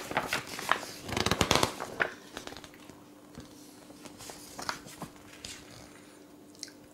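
Glossy magazine pages being handled and turned, rustling and crinkling for the first two seconds, then a few softer paper sounds, over a faint steady hum.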